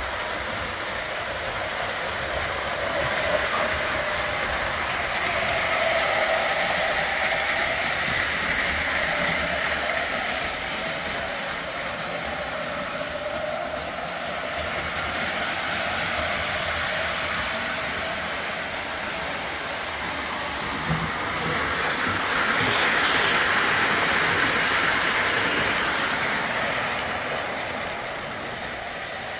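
Model train running around a track loop, a steady whirring rattle that grows louder and fades again about every eight or nine seconds as it passes.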